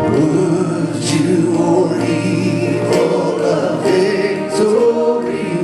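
Gospel hymn sung by a worship team and congregation, with held notes over instrumental accompaniment.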